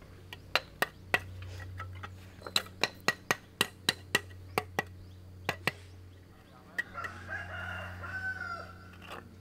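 A quick run of sharp knocks, about two a second, then a rooster crowing once for about two seconds near the end.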